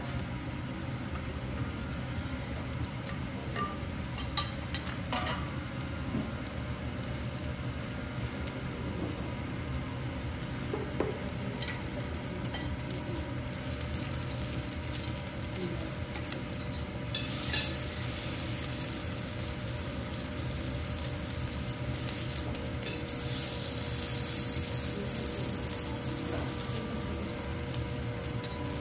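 Kuroge Wagyu steak and other food sizzling steadily on a teppanyaki steel griddle, with a few sharp clicks of the chef's metal knife and spatula against the plate. The sizzle grows louder and brighter about three-quarters of the way through.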